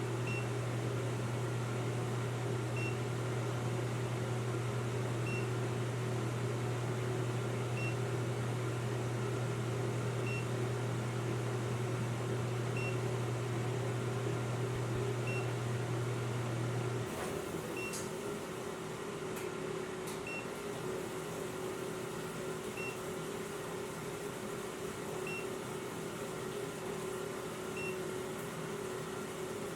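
A short, high electronic beep repeating about every two and a half seconds, over a steady low hum that cuts off about seventeen seconds in. A few faint clicks follow.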